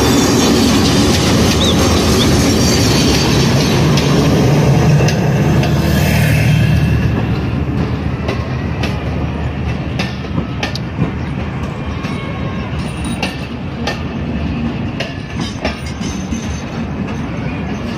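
Pakistan Railways RGE20 diesel locomotive passing close with its engine running, loudest for the first seven seconds or so. Then the passenger coaches roll past, their wheels clacking over the rail joints as the train pulls into the platform.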